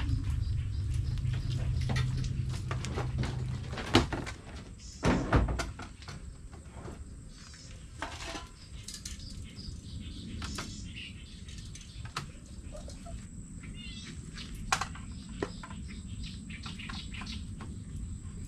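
Knocks and clatter of camp-cooking gear being handled at a pickup's tailgate, loudest about four and five seconds in. Birds chirp now and then over a steady high insect drone, and a low hum stops about four seconds in.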